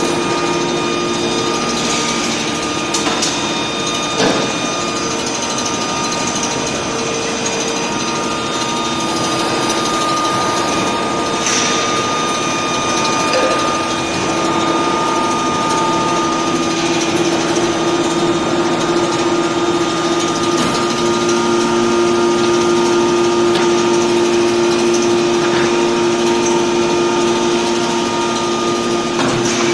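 Aluminium bar induction heat treatment line and surrounding factory machinery running: a steady mechanical hum with several held tones, broken by a few short knocks and clicks.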